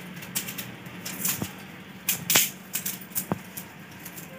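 Dry twigs crackling and snapping, with a few sharp snaps scattered irregularly, as kindling is handled for a cooking fire.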